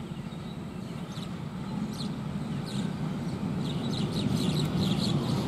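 Low rumble of an approaching diesel locomotive, growing gradually louder, with birds chirping over it.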